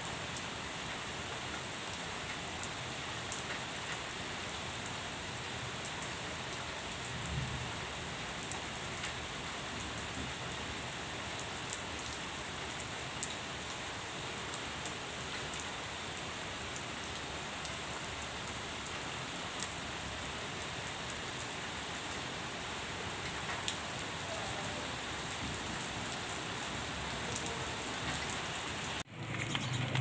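Hail and rain falling steadily: an even hiss with scattered sharp ticks of hailstones striking.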